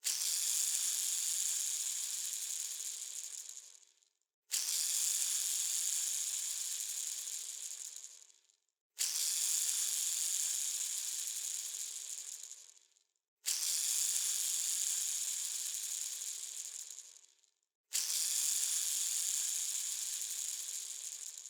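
Ball bearing spun five times, each spin starting suddenly with a bright, high whir and rattle that fades away over about four seconds as it slows down.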